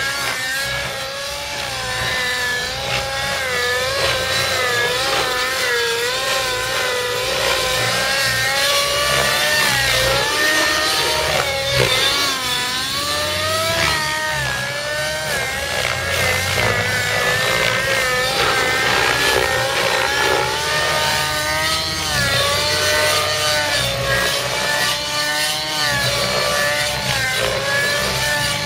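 Outrage Velocity 50 radio-controlled helicopter in aerobatic flight: its nitro engine and spinning rotor blades make a loud whine that rises and falls every second or so as the throttle and blade pitch change.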